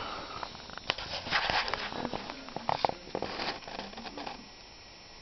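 Handling noise from a handheld camera: irregular clicks and rustles for about four seconds, dying down near the end.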